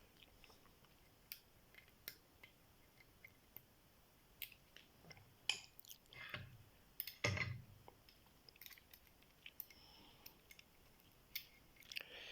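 Lock pick and tension wrench working the pins of a Master Lock 140 padlock: faint, scattered small metal clicks, with a few louder scrapes and knocks in the middle.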